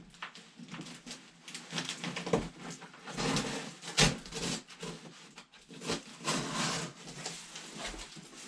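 Cardboard shipping box being cut and pried open by hand: cardboard and tape scraping and rustling irregularly, with a sharp snap about four seconds in.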